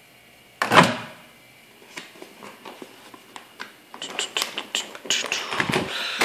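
Microwave oven door latch releasing with one loud click as the door is pulled open, followed by crinkling and rustling of the paper microwave-popcorn bag, puffed full of freshly popped corn, as it is handled and lifted out.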